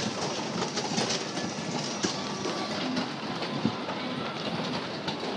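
Kiddie motorcycle ride spinning, its turntable rumbling and clattering steadily with scattered clicks.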